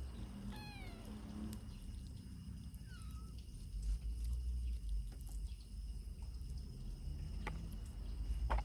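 Kitten meowing: one call falling in pitch about half a second in, then a fainter, shorter one about three seconds in. A low rumble runs underneath, and a few sharp clicks come near the end.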